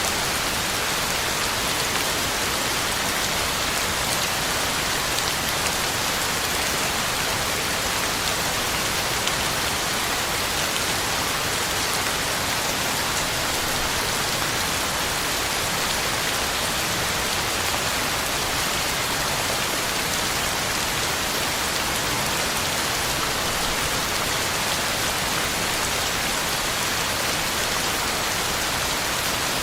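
Heavy rain falling steadily, an even hiss of drops on the ground and leaves with no change in strength.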